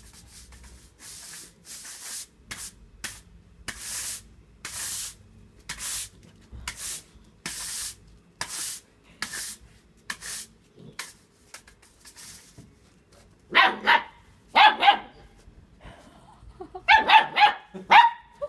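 A broom's bristles scraping across the ground in short strokes, roughly one a second, for the first twelve seconds or so. Then an eight-week-old German Shepherd puppy barks twice, followed by a quick run of about five high-pitched yaps near the end.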